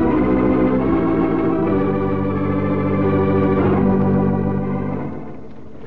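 Organ music cue of sustained, held chords that shift lower in the first two seconds and fade away about five seconds in.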